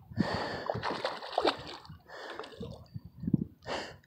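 Water splashing and sloshing in three irregular bursts as a hooked tiger muskie thrashes at the surface in the shallows while being landed.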